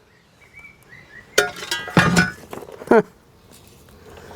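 Loose steel parts and tools clinking and clattering together, a handful of sharp knocks with brief ringing, during the teardown of a small wood chipper.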